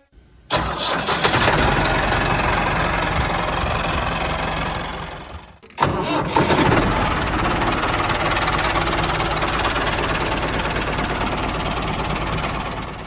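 Engine sound of a diesel tractor engine, starting twice. It catches abruptly about half a second in, runs steadily, then dies away. After a short break near the middle it starts again and runs steadily until near the end.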